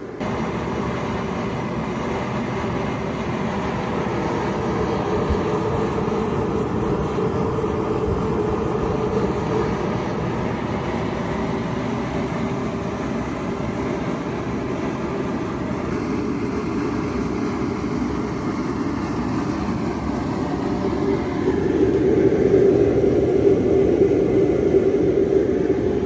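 Bauer propane heater burning on low, a steady rushing roar of flame and air that grows louder about 21 seconds in.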